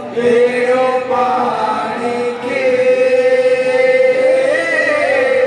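Odia devotional kirtan: a group of women singing a chant together over a steady held tone.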